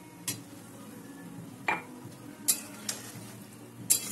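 Metal spatula stirring vegetables in a milky gravy in a metal kadai, giving several sharp clinks against the pan over a steady low hum.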